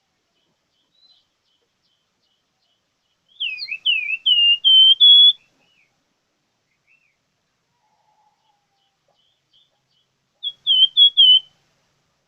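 A plamboyan songbird singing in clear whistled phrases: a run of falling whistles that settle into a few level notes, then after a long pause a short quick burst of notes near the end.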